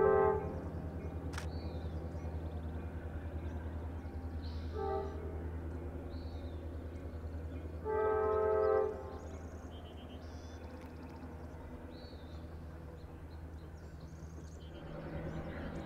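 Coaster F40PHM-2C diesel-electric locomotive running with a steady, pulsing engine drone while its multi-tone air horn sounds three times: a blast cutting off just after the start, a brief toot about five seconds in, and a longer blast of about a second near eight seconds.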